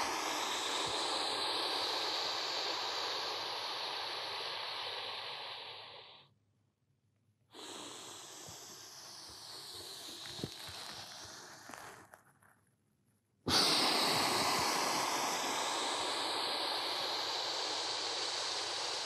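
A man's slow, deep breaths, heard as long hissing air: one long exhale fading away over about six seconds, a quieter breath after a short gap, then another strong exhale starting suddenly about two-thirds of the way through. Each breath is separated by a brief dead silence.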